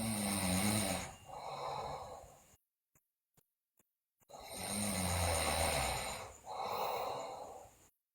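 A girl snoring loudly in her sleep. One snore dies away, and after a pause of nearly two seconds a second snore comes. Each is a low, pitched snore of about a second that runs straight into a breathy rush of air.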